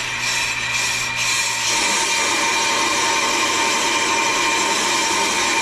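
Pro-Cut on-the-car brake lathe running, turning the brake rotor while its cutting bits machine the rotor's outer lip, over a steady whine. The scraping of the cut grows rougher about two seconds in.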